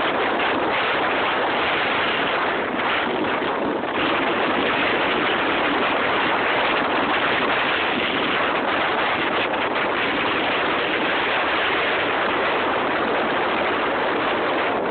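Hurricane-driven waves on a large lake surging and breaking in strong wind: a loud, steady rushing noise with no separate crashes standing out.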